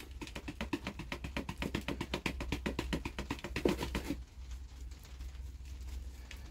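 Bonsai soil mix of moler clay and organic matter rattling in a plastic mesh chip basket shaken as a sieve over a bucket, in a quick even rhythm of about eight or nine shakes a second. The shaking stops about four seconds in, leaving a fainter rustle.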